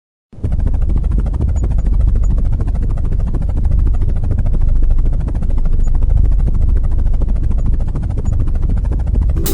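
Helicopter sound effect: steady rotor and engine noise, heavy in the bass with a fast even chop. It starts suddenly a moment in, after a short silence, and music comes in right at the end.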